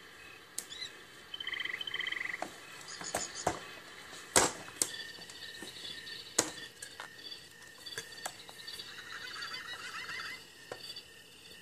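A baby slapping and banging the plastic toys of a Baby Einstein activity center: scattered sharp knocks and clicks, the loudest a little past the middle. Short rapid trills sound near the start and again near the end.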